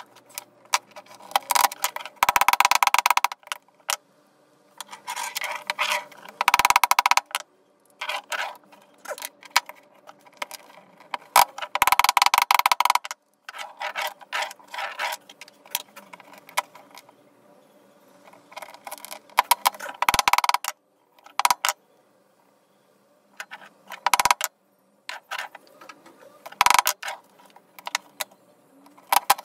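Hand tool scraping a PVC roller in repeated strokes of a second or so each, at irregular intervals, with softer clicks in between.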